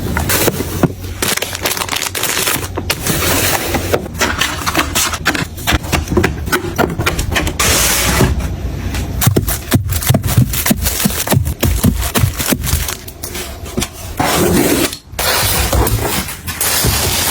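Household items being handled and put in place: a busy run of clatters, knocks and scraping.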